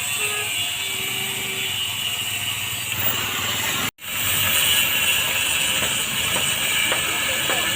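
Steady machinery noise, broken by a sudden gap in the sound about four seconds in.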